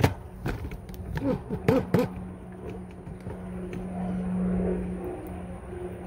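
Several sharp clicks and knocks of hand work on control-panel wiring in the first two seconds. After that comes the steady low hum of a vehicle engine, growing louder through the middle.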